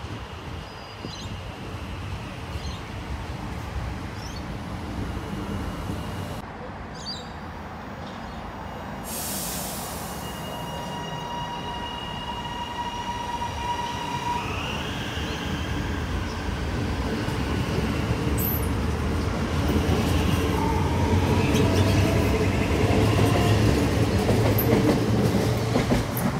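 Metro Trains Melbourne High Capacity Metro Train electric sets running through station platforms: a steady rumble with squealing wheels and thin whining tones, one rising in pitch about a third of the way through, and the rumble growing loudest in the last few seconds as a train runs close by.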